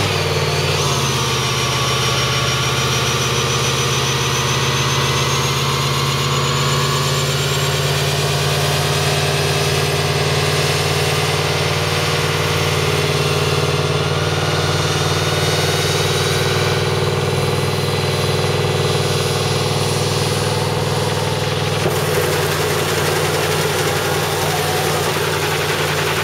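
Pickup truck doing a burnout: the engine is held at steady high revs while the rear tyres spin and squeal on the pavement. The sound changes slightly about four seconds before the end.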